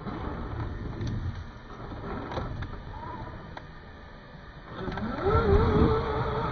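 Electric motor and geartrain of an Axial SCX6 RC crawler whining as it climbs over rocks, with scattered clicks from the tires and chassis on stone. About five seconds in the whine rises in pitch, gets louder and then holds steady.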